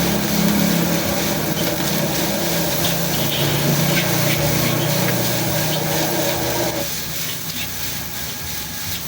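Stir-frying in a wok at a street-food stall: a steady sizzling hiss with the clatter and scrape of a metal spatula. A steady mechanical hum runs underneath and cuts off suddenly about seven seconds in.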